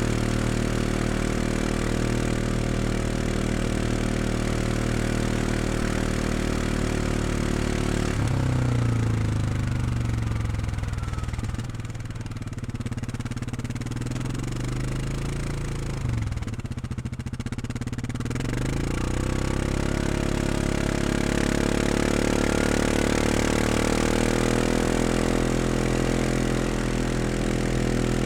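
Four-stroke utility ATV engine running at a steady idle, then from about eight seconds in its pitch rises and falls through several revs. It goes a little quieter in the middle, then settles into a steady, slightly higher-pitched run near the end.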